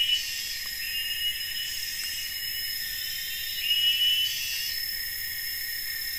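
Chorus of tropical forest insects: several steady, high-pitched buzzing and trilling layers, with a short rising chirp recurring every two seconds or so.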